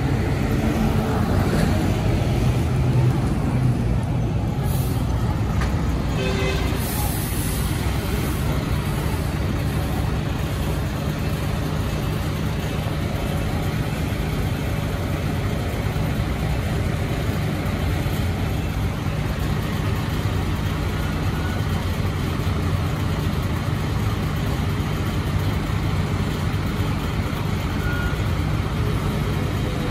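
Steady low rumble of a container tractor unit's diesel engine idling close by, mixed with passing street traffic. A short air hiss comes about seven seconds in.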